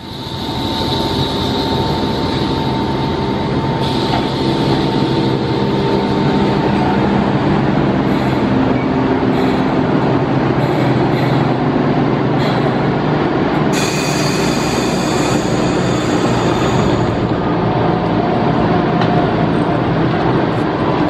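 Enoden two-car electric train running into the platform and standing there, a loud steady rumble of wheels and motors with a steady hum through it. About fourteen seconds in there is a burst of hiss lasting some three seconds.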